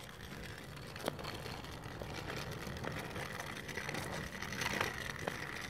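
Small plastic wheels of a child's three-wheeled kick scooter rolling over asphalt: a steady low rumble, with a couple of faint clicks.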